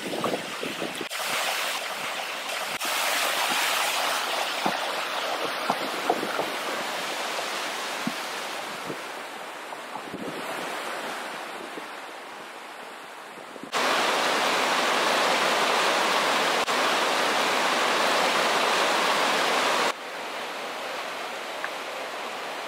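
Rushing mountain creek water, with scattered clops of a horse's hooves on the trail and the wooden footbridge in the first half. Partway through, the water abruptly becomes a louder, steady rush for about six seconds, then drops back to a softer rush.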